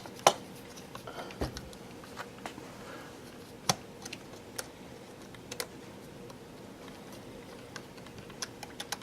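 Scattered light clicks and taps of small plastic and metal model-kit parts being handled, as the metal weight is fitted into an HO-scale freight car body.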